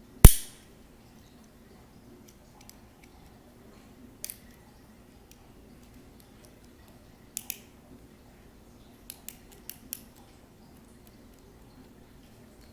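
Sharp clicks and snaps from handling a toy and its packaging: one loud snap just after the start, then scattered softer clicks, with a quick run of four about nine to ten seconds in.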